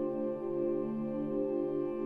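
Slow ambient background music made of long, sustained tones that overlap and change only slowly.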